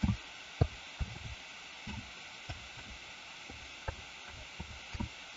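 Computer keyboard being typed on: scattered soft, irregular key taps over a faint steady hiss.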